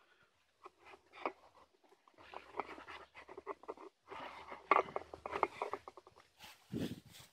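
Irregular scraping, scuffing and clicking from hand work on a building site, in two busy stretches, with one duller thump near the end.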